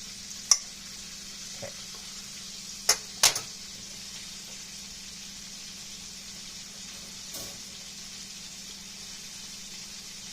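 Chicken legs deep frying in hot oil: a steady sizzling hiss, with three sharp clicks, one about half a second in and two close together around three seconds in.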